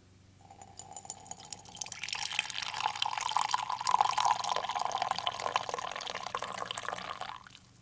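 A dark drink, poured from above in a steady stream, filling a ceramic mug. It swells about two seconds in and stops shortly before the end.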